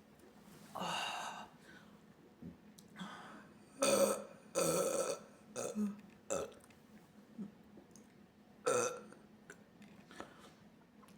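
A woman burping several times in a row: a drawn-out burp about a second in, a run of loud burps around four to five seconds in, a few shorter ones after it, and another loud burp near nine seconds.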